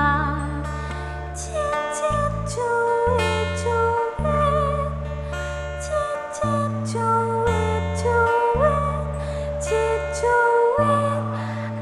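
Javanese gamelan ensemble playing: bronze metallophones and gongs struck in a steady pattern, with kendhang drum. A sung melodic line glides above them.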